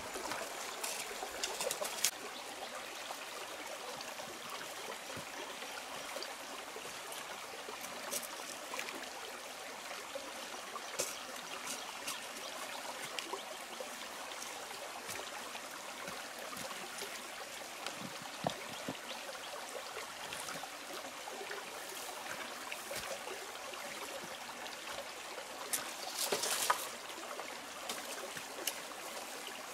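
Small stream trickling steadily over rocks. A few short knocks and rustles of bamboo poles being handled stand out over it, the loudest near the end.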